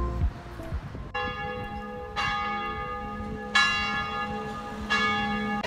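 A church bell tolling four strikes, a little over a second apart, each ringing on under the next.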